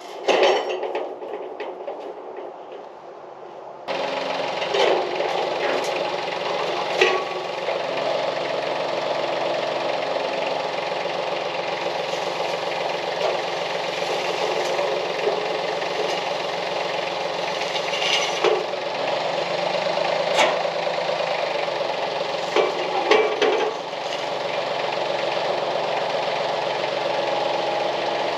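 A few metal clanks of a hook and chain on a steel truss, then from about four seconds in a compact tractor's engine runs steadily as its front-loader boom pole lifts a curved metal roof truss, with several sharp metal clanks along the way.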